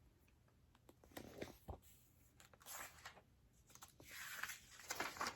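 Faint rustling of a picture book's paper pages being handled, with a few soft knocks about a second in and two swells of rustling later on.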